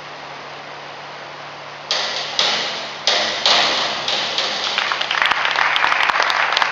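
Springboard dive: a few sharp bangs from the diving board about two seconds in as the diver hurdles and takes off, then the splash of the water entry, followed by scattered clapping.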